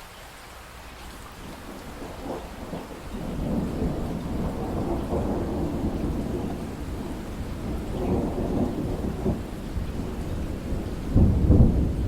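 Steady rain with a long, low roll of thunder that builds from about three seconds in and swells to its loudest near the end.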